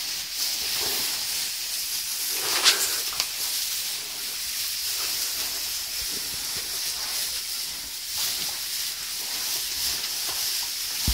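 Several pigs rooting and shoving through fresh straw bedding: a steady dry rustle of straw, with a few low grunts early on and a sharper crackle about two and a half seconds in.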